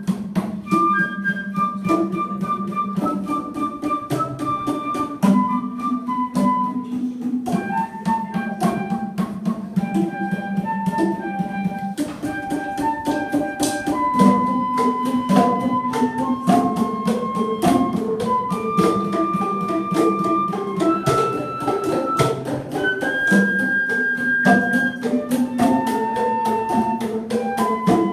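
Transverse flute playing a melody over a group of boomwhackers, plastic tubes struck in a quick, steady rhythm that sounds pitched notes.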